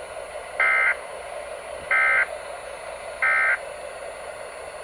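Emergency Alert System end-of-message code: three identical short bursts of shrill data-tone warble (AFSK), about a second apart, marking the end of the alert. They come through AM radio over a steady background hiss.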